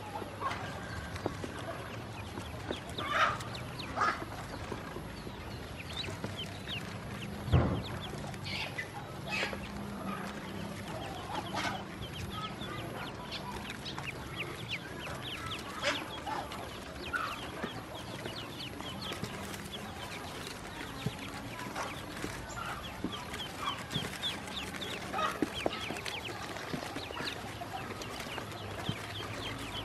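Newly hatched ducklings peeping in a box: many short, high chirps coming almost continuously, with a few louder calls here and there.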